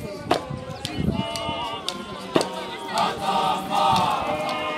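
A group of men singing a hymn-like chant together, growing louder about three seconds in, with a couple of sharp knocks.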